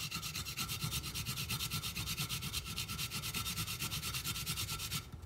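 A garlic clove being grated on a small hand grater: a quick, even run of rasping strokes that stops just before the end.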